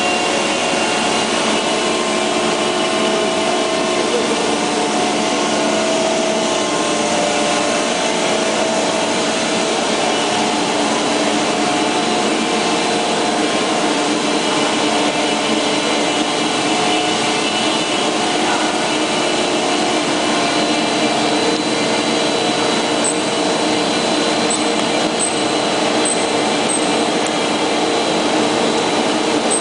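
CM-PRD 120 two-stage plastic recycling pelletizing line running under load: a steady, loud machine drone with several constant hum tones from its drives as scrap is fed through the extruder and the strands go to the cutter.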